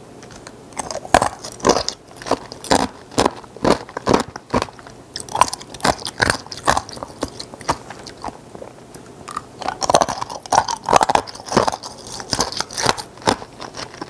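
Chunks of ice being bitten and crunched between the teeth, a steady run of sharp crunches about two a second.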